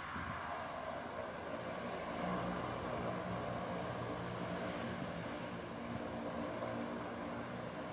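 A distant engine running steadily, a low drone that grows a little louder about two seconds in, over a steady outdoor hiss.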